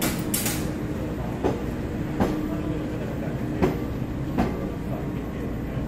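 EMU3000 electric intercity train rolling slowly past along the platform as it pulls out: a steady rumble with a motor hum, and wheel clacks over a rail joint in two pairs, one pair about a second and a half in and another pair past the middle.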